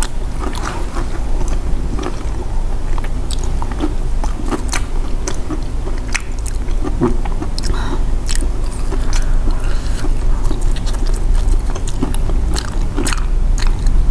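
Close-miked chewing and biting into sweet potato and cassava balls, with many small sharp mouth clicks scattered throughout.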